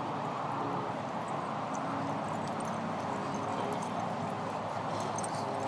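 Pit bull puppies play-fighting on grass: scuffling and low growling over a steady rushing background noise.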